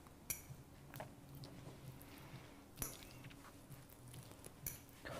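Faint sounds of someone eating with a fork: three sharp clinks of the fork against a plate, with quieter chewing and small clicks between.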